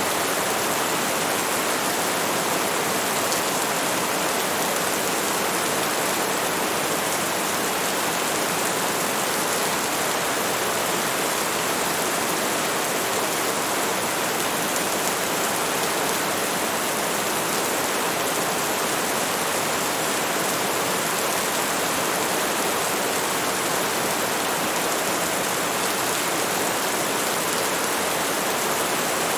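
Steady heavy rain, a dense even hiss that does not change.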